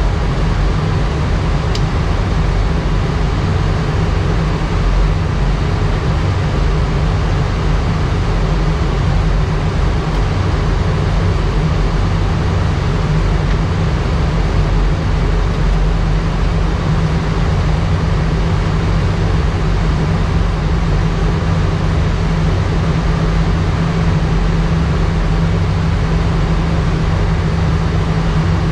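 Airbus A319 flight deck in descent with the engines at idle thrust: a steady, loud rush of air with a strong low rumble beneath it.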